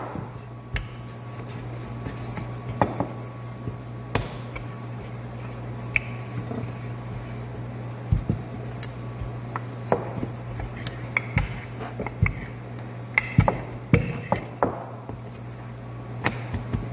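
Wooden rolling pin rolling and knocking on a plastic cutting board as dough is rolled out and pressed flat by hand: irregular taps and clacks, over a steady low hum.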